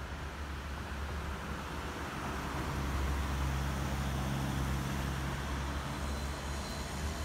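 Ambulance van driving past: engine drone and tyre noise on the road, growing louder about two and a half seconds in as it goes by, with no siren sounding.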